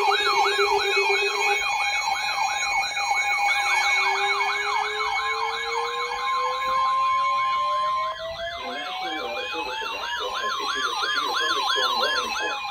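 Several electronic sirens sounding at once: a fast yelp sweeping up and down about three times a second, steady tones, and a slower wail rising from about four seconds in. Partway through, a steady alert tone near 1 kHz, the NOAA Weather Radio warning alarm, sounds for about two seconds and cuts off.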